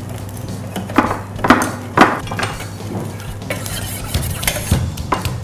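A stone pestle pounding bird's eye chilies, garlic and coriander root in a stone mortar, along with a cleaver chopping chili on a wooden board: three loud knocks about half a second apart about a second in, then softer ones.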